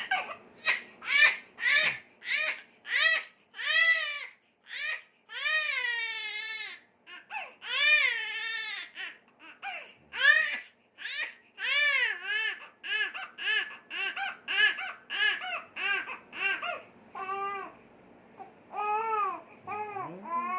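Infant crying in short, rapid wails, about two a second, with one longer wavering wail about six seconds in.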